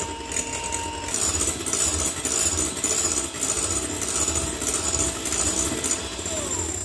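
Electric hand mixer whipping egg whites to a meringue in a glass bowl. The motor runs steadily while the metal beaters rattle and scrape against the glass about twice a second. It cuts off at the end.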